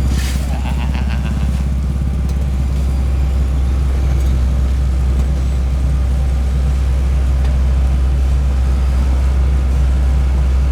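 Diesel engines of an asphalt paver and dump truck running steadily, with a deep, constant low hum. A short hiss comes right at the start.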